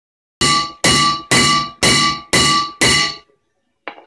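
Six evenly spaced hammer blows on metal, about two a second, each ringing briefly: a hammer striking a rusted rear brake rotor that is stuck fast on its hub.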